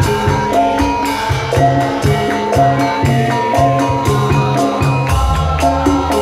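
Javanese gamelan music: metallophones playing a repeating melody in steady pitched notes over a regular low drum beat, with quick, sharp, high percussion strokes on top.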